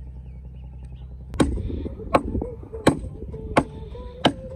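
A long curved knife chopping into a dead, fallen tree branch: five sharp strokes about every 0.7 s, starting about a second and a half in, over a steady low wind rumble.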